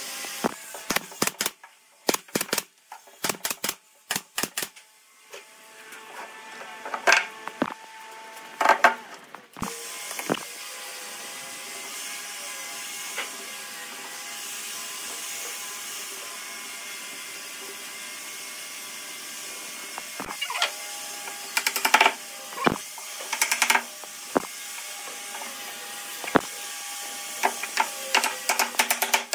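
Workshop sounds: clusters of sharp taps and clicks during the first ten seconds and again from about twenty seconds in. Between them a steady mechanical hum with a few held tones runs on its own.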